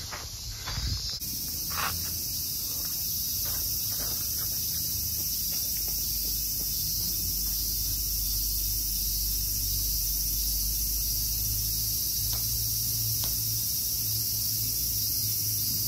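Steady, high-pitched chorus of insects in the shrine's trees, with a low steady rumble underneath and a few faint taps.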